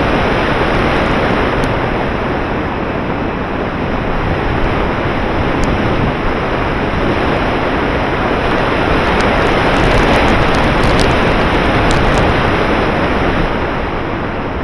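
Steady, loud wind rush on the microphone of an action camera riding on an RC model plane in flight, airflow buffeting the mic with no clear motor tone. It eases off slightly near the end.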